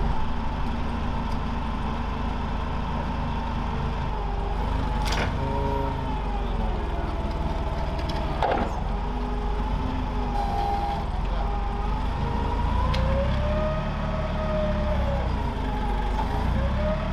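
Clark forklift engine running steadily under load while lifting a heavy section slung on chains, with a whine that slowly rises and falls over it. Two sharp knocks come about five and eight and a half seconds in.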